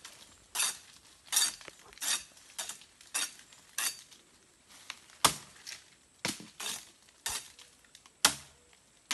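Machete chopping into the base of a clump of slender cane-like stems: a steady series of sharp, clinking blows, about three every two seconds, two of them harder than the rest.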